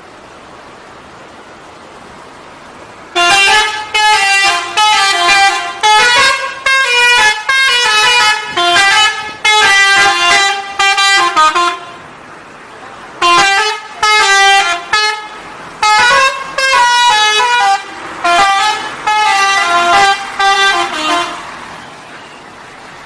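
Bus 'telolet' musical horn playing quick runs of notes that step up and down in pitch, in two long bursts with a short break between them.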